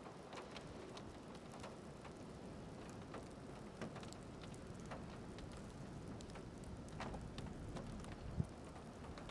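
Storm ambience: a faint steady rushing of wind with scattered light ticks of raindrops, and one sharper tick near the end.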